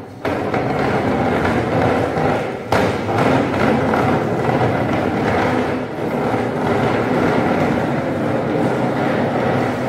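Steady, loud vehicle running noise, a dense rumble without clear tones, with one sharp knock about three seconds in.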